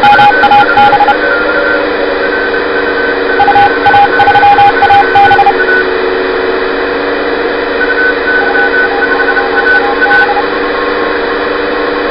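Homebuilt BITX20 20-metre receiver's audio: a steady hiss of band noise with several steady heterodyne whistles, and a Morse code (CW) signal, a whistle keyed on and off in short and long elements, coming through in three spells.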